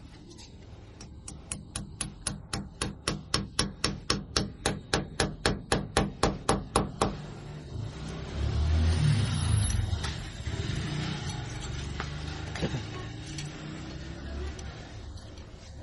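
A run of about two dozen sharp, evenly spaced knocks, about four a second, stopping about seven seconds in, followed by a low rumble.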